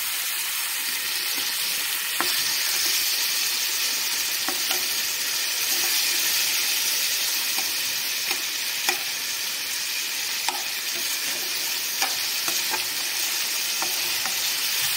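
Chopped tomatoes, onions and whole spices sizzling in hot oil in a kadai, with a steady hiss. A flat spatula stirs them, and it knocks and scrapes against the pan every second or two.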